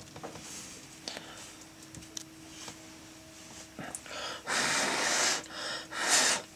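Two loud, breathy exhalations close to the microphone, a long one about four and a half seconds in and a short one near the end, from a person breathing heavily. Faint small clicks and a steady low hum sit underneath.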